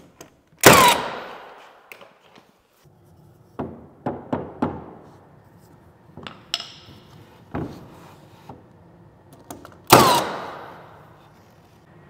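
A cordless finish nailer fires twice, about nine seconds apart, each shot a sharp crack followed by a falling ring, driving nails through wooden door casing. Lighter knocks and taps come in between.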